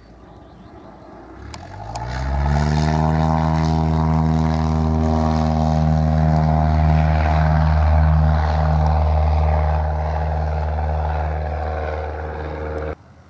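Cessna light aircraft's piston engine and propeller rising to full power a second or two in, as the touch-and-go roll turns into the takeoff, then a loud steady engine note as it lifts off and climbs past. The sound cuts off suddenly near the end.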